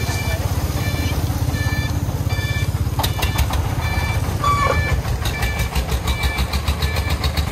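Diesel engine of a loaded công nông dump truck chugging with a fast, even low beat as it drives off. A short electronic beep repeats about every two-thirds of a second, and a fast clicking rattle joins about three seconds in.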